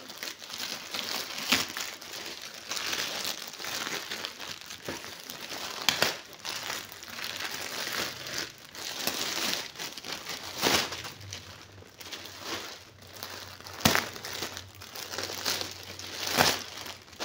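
A grey plastic mailer bag and a clear plastic bag crinkling and rustling as they are handled and pulled apart, with a sharp crackle every few seconds.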